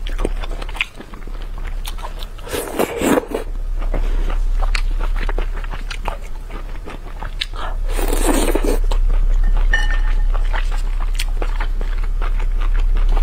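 Close-miked eating of chili-oil-soaked cold-pot skewers: crunchy bites and wet chewing with many small clicks, and two longer, louder slurps about three and eight seconds in, over a steady low hum.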